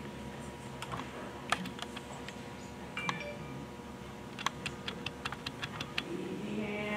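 Irregular sharp clicks and ticks, a few single ones and then a quicker run of about four a second in the second half, over a steady low hum with a faint whine.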